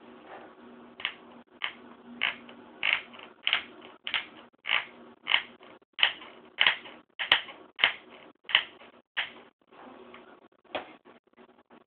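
Creaking from a 15-inch MacBook Pro with Retina's case: a regular run of creaks, about one every 0.6 s, stopping after about nine seconds, with one more near the end, over a faint steady hum. The owner was told the creak is normal for this model and that the case apparently brushes against the cooling fan when the computer is warmed up.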